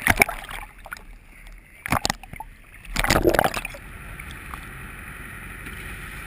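Sea water slapping and splashing against a camera housing at the surface, in irregular bursts with the loudest splash about three seconds in. Then a steady drone of a small boat under way.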